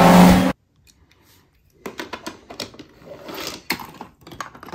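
A race car's engine and commentary from an animated race scene cut off suddenly about half a second in. After a short quiet, from about two seconds in, comes an uneven run of light clicks and clatter as toy cars are handled in a plastic tub.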